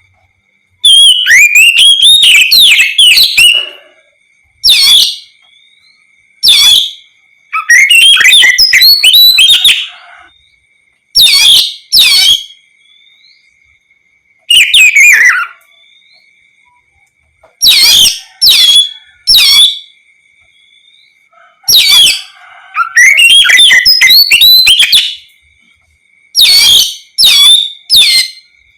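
Oriental magpie-robin (kacer) singing loudly in repeated phrases of rich, gliding whistles and quick notes, each burst lasting from a moment to about three seconds, with short pauses between. A faint steady high tone runs underneath.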